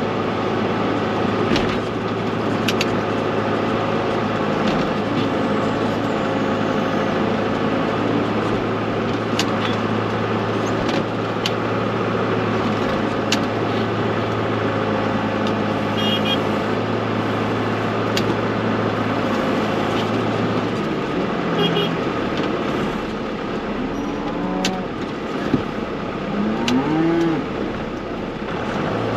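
Tractor engine running steadily with scattered knocks and clicks; the engine drone drops away about three quarters of the way through. A few cows moo near the end.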